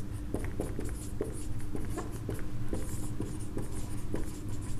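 Whiteboard marker scratching across a whiteboard in many quick short strokes as a word is handwritten, over a steady low hum.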